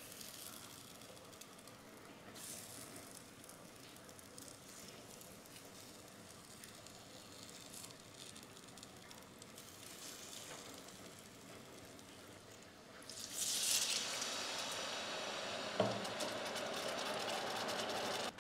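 Buns frying in oil in a cast iron skillet, a faint sizzle while they are set down one by one. About thirteen seconds in, water goes into the hot pan and a loud hiss of sizzling and steam takes over, with one sharp knock a little later.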